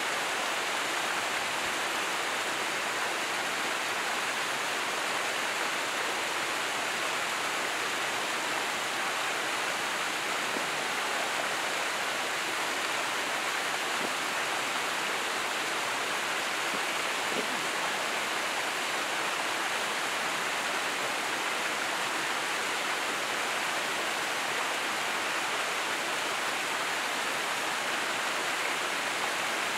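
Steady rushing of running water, an even hiss with no separate splashes or other events.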